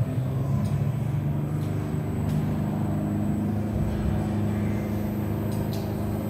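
Simulated propeller-plane engine from a flight simulator's speakers: a steady drone with several held tones.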